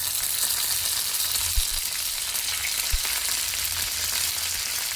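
Mustard seeds and fresh coriander leaves sizzling in hot oil in a pan, a steady frying hiss. Two soft low knocks come about a second and a half and three seconds in.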